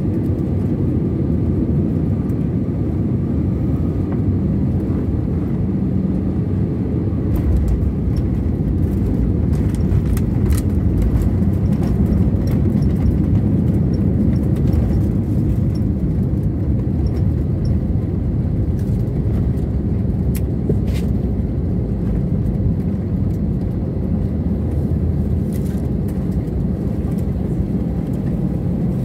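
Airliner cabin noise during the night landing: a steady low rumble of engines and airflow. It grows louder about eight seconds in, with scattered clicks and rattles through the middle, as on touchdown and the roll down the runway.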